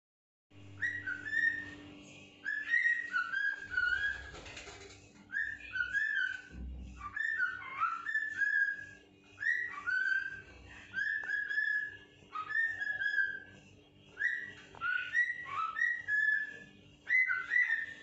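Cockatiel whistling its song: short phrases of a few quick notes that swoop up and down, repeated every second or two with brief pauses between.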